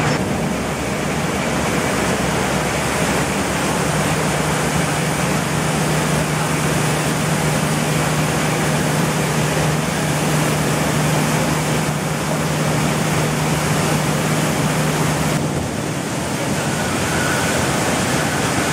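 Rice mill machinery running: a steady low hum under a loud, even rush of rice grains pouring from chutes and running over the grading sieves. The hum drops out a few seconds before the end.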